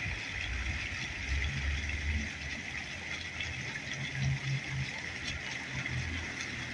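Street ambience: a low, uneven rumble of traffic under a steady high-pitched hiss.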